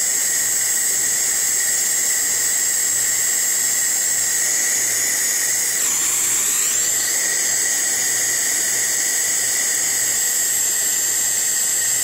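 Air-acetylene brazing torch burning with a steady hiss and a high whine while it heats a copper refrigerant-line joint for brazing. Its tone shifts briefly about six seconds in.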